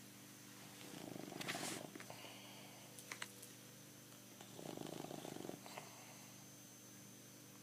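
Bulldog snoring in its sleep: two rattling snores about three and a half seconds apart, one with each breath, with a softer steady drone between them.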